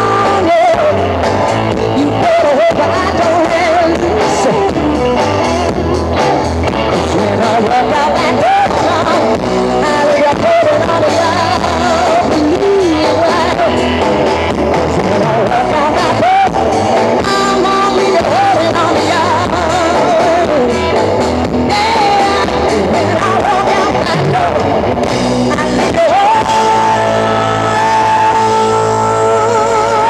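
Blues-rock band playing live on amplified electric guitars, bass and drums, with a woman singing lead. Near the end the band holds a long note with vibrato.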